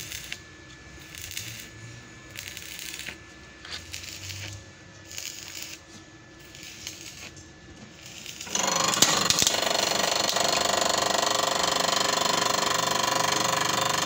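A few light clicks and knocks as parts are handled on a steel press bed. About eight and a half seconds in, the electric motor that drives a 12-tonne hydraulic bottle jack switches on and runs steadily and loudly, working the jack to press down.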